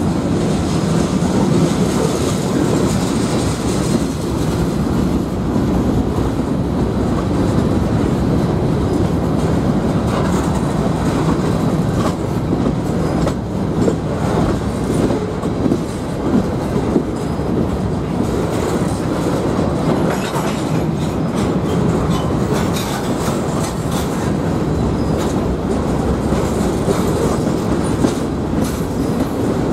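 Freight train of covered hopper cars rolling past: a steady rumble of steel wheels on rail, with clicks as the wheels cross rail joints.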